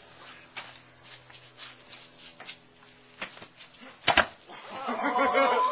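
Faint scattered clicks, then a sharp double knock about four seconds in, like a hand clap or slap, followed near the end by a person's raised voice, shouting or laughing.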